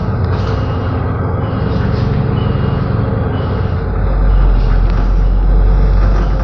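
Road traffic: vehicle engines running with a deep, steady rumble that grows louder about four seconds in, with a few short faint high beeps.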